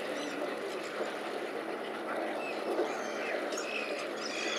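Waterbirds calling: short, high calls from ducks and gulls, more of them in the second half, over a steady wash of background noise.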